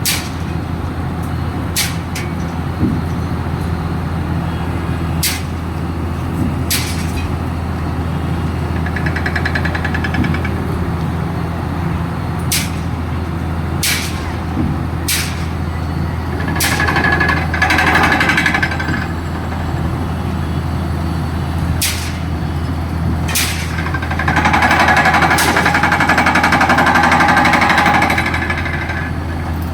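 Pile-driving rig working on precast concrete piles: a diesel engine hums steadily under irregular sharp knocks. Loud rapid rattling comes twice, briefly about 17 seconds in and again for about four seconds near the end.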